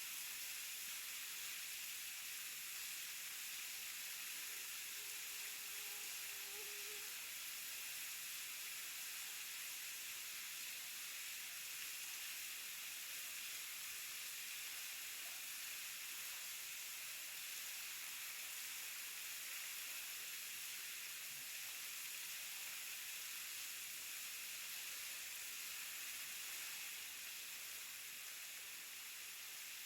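Waterfall rushing steadily, a constant hiss-like noise of falling water.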